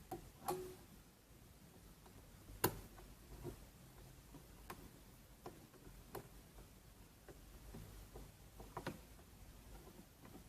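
Scattered light clicks and taps, about ten of them at uneven spacing, with one sharper click a little after two and a half seconds in, over a faint background hiss.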